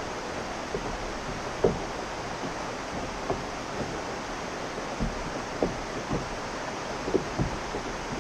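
Steady rush of river water running over shoals, with a few irregular soft knocks and slaps against the kayak.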